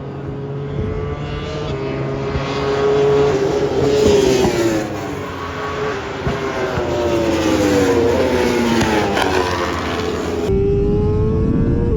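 Honda CBR1000RR-R's inline-four engine at racing speed, revs climbing for the first few seconds and then falling steadily for several seconds as the bike slows. Near the end the sound changes abruptly and the revs are climbing again.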